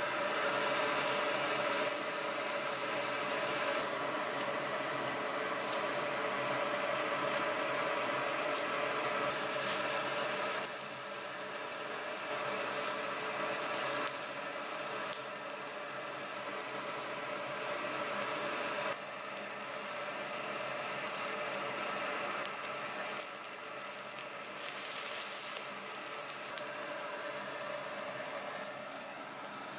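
A steady mechanical hum with several fixed tones, likely an extractor or ventilation fan, over a hissing sizzle of pig intestines grilling on a wire mesh over charcoal. The level drops abruptly a couple of times.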